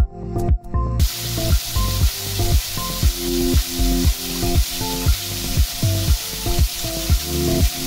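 Background music with a steady beat of about two a second. From about a second in, a steady rushing hiss of falling water runs beneath it.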